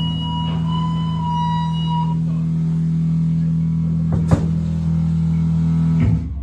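Amplified band instruments hold a low, steady drone. A high, steady feedback-like tone rings over it and stops about two seconds in. A sharp click comes a little past four seconds.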